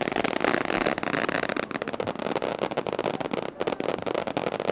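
Ground fountain fireworks spraying sparks: a steady hiss full of rapid crackles.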